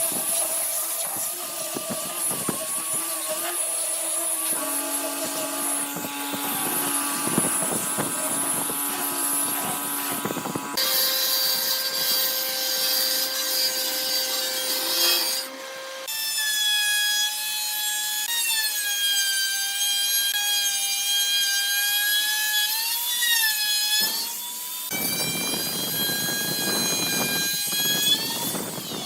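Power tools working wood: motor whines with sawing and grinding noise. The pitch changes abruptly every few seconds as one tool gives way to another, and at times the whine glides up and down.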